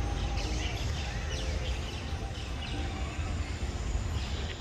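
Outdoor ambience: birds chirping in short calls over a steady low rumble.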